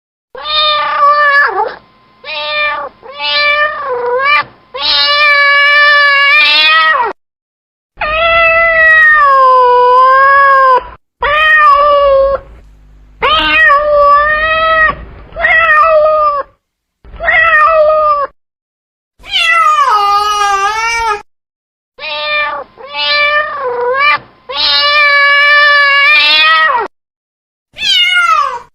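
Domestic cat meowing over and over: about fifteen meows, some short and some long and drawn out with the pitch sagging and rising again, separated by short gaps of silence.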